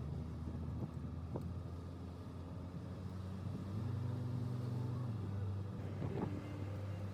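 Car engine running while driving, a steady low hum whose pitch steps up about three and a half seconds in and settles back down around six seconds.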